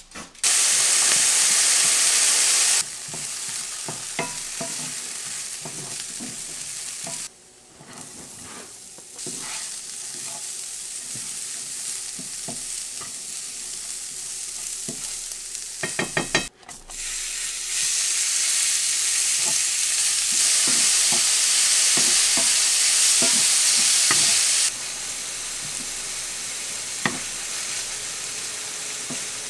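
Diced potatoes and ground meat sizzling in a hot nonstick frying pan, stirred with a wooden spoon that clicks and knocks against the pan now and then. The sizzle is louder for the first few seconds and again for several seconds after the middle.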